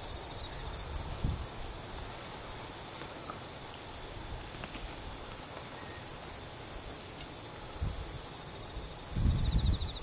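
Insects chirring steadily, a constant high-pitched hiss, with a few low thuds near the end.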